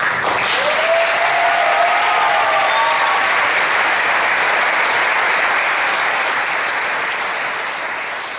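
Concert audience applauding, breaking out all at once, with a long cheer from one voice in the first few seconds; the clapping eases off toward the end.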